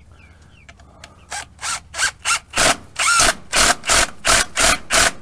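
A hand tool worked back and forth on wood, about three scraping strokes a second, starting a little over a second in.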